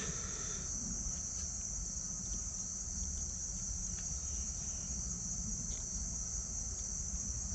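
Steady, high-pitched insect chorus, a continuous shrill trill, with a faint low rumble underneath.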